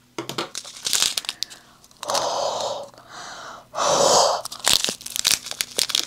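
Two long puffs of breath blown into a small plastic bag of diamond painting drills, about two seconds in and again near the middle, with crinkling of the bag and small clicks around them. The blowing is meant to free drills clinging to the bag from static.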